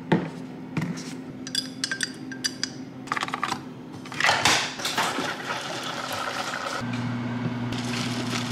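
Dishes and utensils clinking and clattering in a kitchen: a run of sharp clinks, some briefly ringing, and a louder clatter about halfway through. A steady low hum comes in about seven seconds in.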